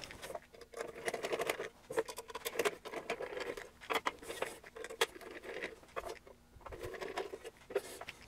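Hand screwdriver backing the screws out of a metal equipment case: repeated short scratchy turns broken by sharp clicks.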